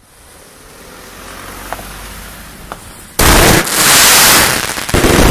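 Firework fuse hissing, slowly growing louder for about three seconds, then a Terremoto firework going off with a sudden, very loud blast. The blast carries on in two or three heavy surges for about two seconds.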